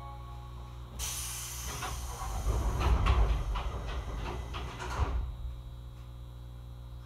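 Pneumatic sliding doors of a 205-series commuter train working at a station stop: a sudden hiss of air about a second in, a run of rattling knocks, and a final thump about five seconds in, after which the hiss stops over the train's steady low hum.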